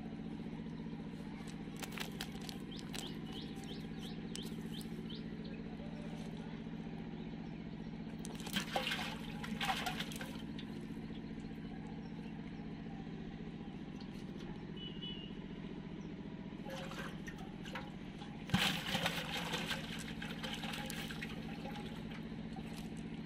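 Cast net and fish being handled by hand as fish are freed from the mesh: short bursts of rustling and slapping about two, nine and nineteen seconds in, over a steady low hum.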